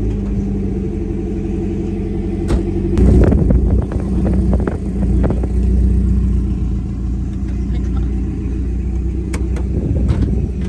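Car engine idling with a steady hum, then revving up about three seconds in and running unevenly at higher revs. A few sharp knocks sound over it.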